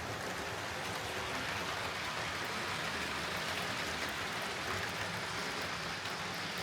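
Hornby Railroad Class 9F OO gauge model steam locomotive running along the track: a steady hiss of its motor, gears and wheels on the rails.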